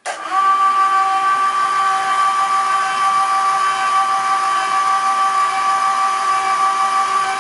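Harbor Freight electric hoist motor running with a steady high whine, winding the cables onto the garage-door drums to raise the steel lift platform into the attic.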